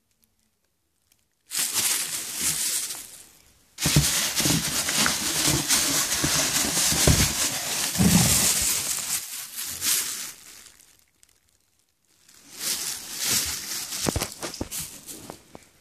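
Thin plastic wrapping crinkling and rustling as a wrapped firework shell is handled right against the microphone. It comes in three bouts with short pauses between them; the longest is in the middle and has some dull bumps.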